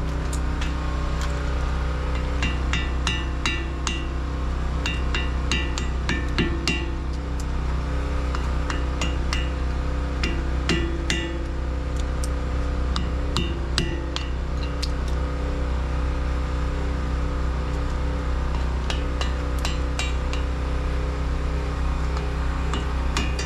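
Hammer striking metal in quick bursts of several blows, each blow ringing briefly, over a steady low hum.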